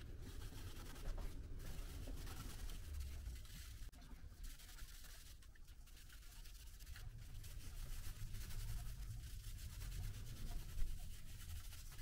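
Wet sponge scrubbing a plastic computer faceplate: a faint, uneven rubbing with short pauses, and one light knock near the end.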